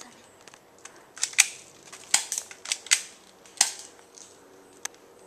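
Airsoft gunfire in single shots: about eight sharp cracks over four seconds, some coming in quick pairs.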